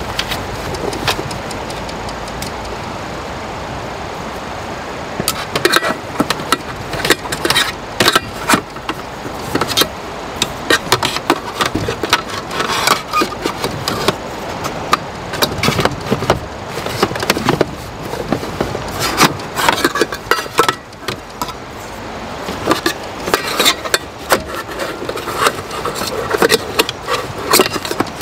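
Handling noise from packing cookware into a metal cabinet drawer: rustling of canvas and cloth pouches with irregular clinks and knocks of a stainless kettle and pots against the drawer, starting about five seconds in, over a steady background rush.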